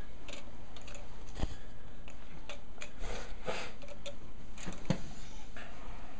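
A few soft knocks and rustles from a toddler climbing down and moving about on the floor, handling things, over quiet room tone; one sharper knock about a second and a half in.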